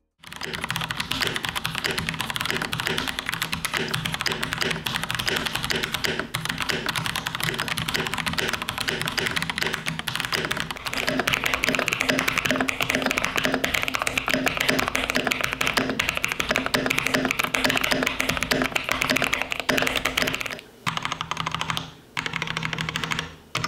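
Continuous fast typing on a MIKIT MK72 mechanical keyboard with Chosfox x JWK DD/Jingle linear switches: a dense, even clacking of keys. About twenty seconds in it changes to the same keyboard fitted with Gateron G Pro 2.0 Red linear switches, typed in short runs with brief pauses between them.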